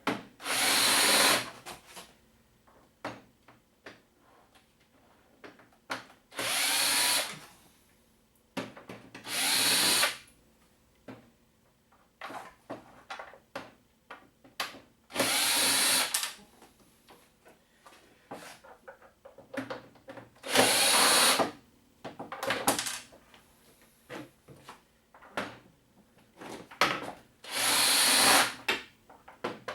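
Electric screwdriver running in short bursts of one to two seconds, about six times, backing screws out of a plasma TV's back cover. Small clicks and taps come between the bursts.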